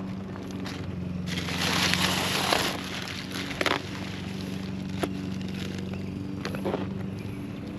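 Crinkling and rustling of tar roofing sheet and its plastic backing film being handled and pressed down, loudest from about one to three seconds in, with a few sharp clicks. A steady low hum runs underneath.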